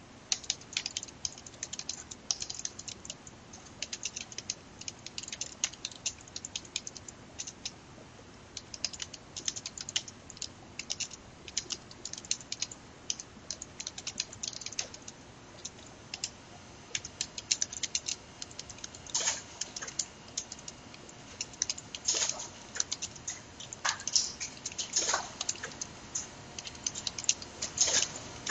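Typing on a computer keyboard: irregular runs of quick keystroke clicks, with a few heavier key presses in the second half.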